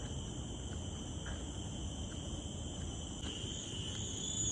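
Tropical forest insects calling in a steady high-pitched chorus of several continuous shrill tones, growing louder about three seconds in.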